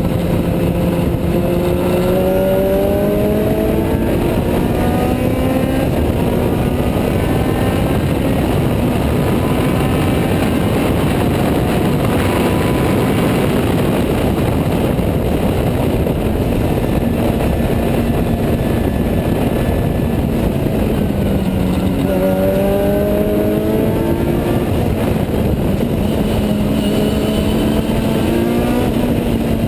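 Onboard sound of a Juno SSE's Honda Type R four-cylinder engine racing at full throttle, its pitch climbing through the revs and dropping at each gear change, under a loud steady rush of wind and road noise in the open cockpit.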